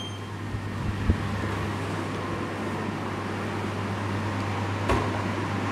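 Steady low hum and air noise of a commercial bakery room's air-conditioning and refrigeration units, with a short knock about a second in and another near the end.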